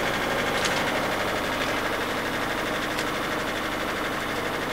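A Westerly Centaur sailing yacht's inboard engine running steadily as the boat motors along in calm water.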